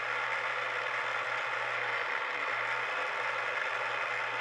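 Milling machine spindle running steadily while a small drill bit bores into steel knife blade stock: an even whir with a low steady hum under it.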